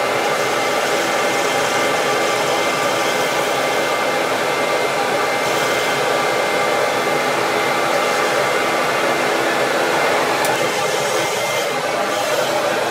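CamVac CGV336-4 dust extractor running on both motors, a steady, loud rushing drone, over a wood lathe turning a pen blank while a hand turning tool cuts it. The high hiss brightens briefly about halfway through and again near the end.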